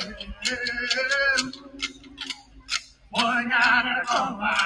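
A man singing in long held notes over a steady beat of sharp clicks, about five a second. The voice stops for a moment about a second and a half in and comes back near the end, while the clicks keep going.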